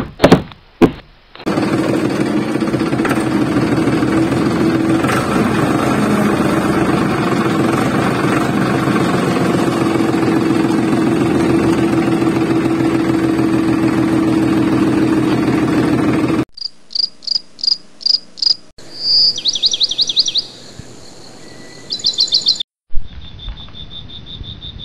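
A small motor runs steadily with a rattle for about fifteen seconds and cuts off abruptly. After it come short high-pitched chirps, a few a second, then a quick trill and a thin steady high tone.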